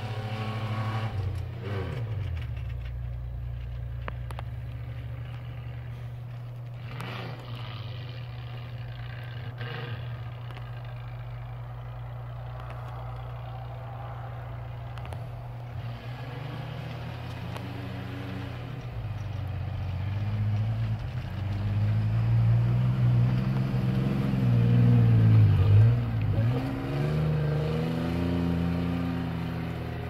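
Ford Ranger pickup's engine pulling through deep snow, its note steady at first, then revving up and down and growing louder in the last third as the driver works the throttle.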